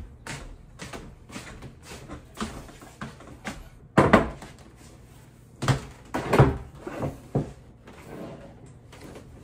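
Footsteps approaching at a steady walking pace. About four seconds in comes a loud thump, then a cluster of knocks and handling noises close to the microphone.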